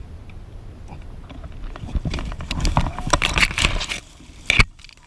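Mountain bike clattering and rattling over rough ground on a trail descent, with a steady low rumble of wind on the microphone; a quick run of sharp knocks and clicks about two seconds in and one more loud knock near the end.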